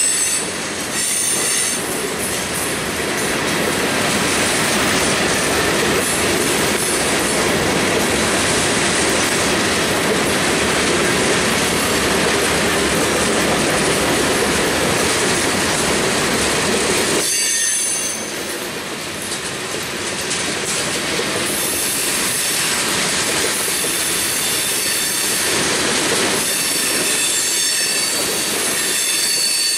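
Freight cars rolling past on the rails: a steady rumble and clatter of steel wheels, with high-pitched wheel squeal that comes and goes, strongest in the second half. The rumble eases a little about halfway through.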